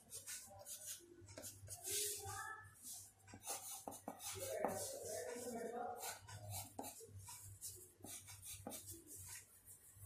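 Pencil scratching on paper in a series of short strokes as small leaves are sketched, with faint voices in the background.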